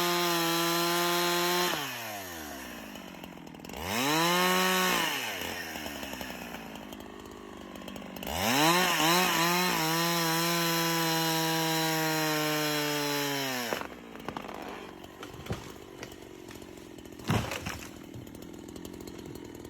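A power tool's motor running at high, steady speed, winding down about two seconds in and briefly revving up and down again. It then runs steadily for about five seconds and stops, followed by a few faint knocks.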